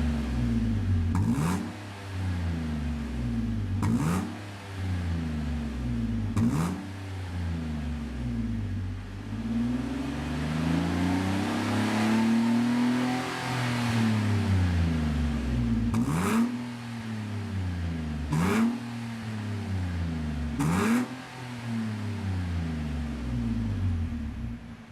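Nissan Elgrand E51's 2.5-litre V6 revved through a stainless aftermarket exhaust with centre and rear silencers, giving a deep exhaust note. Six quick throttle blips, with one slower, longer rev and fall in the middle.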